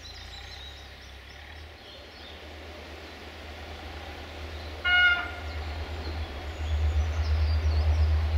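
A diesel locomotive's horn sounds one short blast about five seconds in as the train approaches unseen through the tunnel, and its low engine rumble grows louder toward the end. Birds chirp faintly early on.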